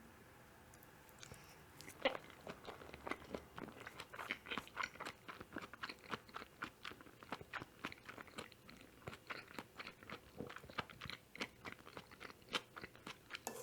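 A person chewing mushroom carbonara close to the microphone: a sharp click about two seconds in, then a steady run of chewing clicks and smacks, several a second.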